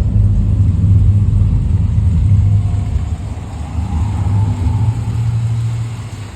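Deep, steady rumble of a car engine running, which eases off near the end.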